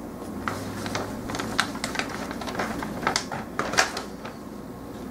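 Plastic model-kit runners and parts clicking and rattling as they are handled and sorted, a scatter of light irregular clicks with a few sharper ones.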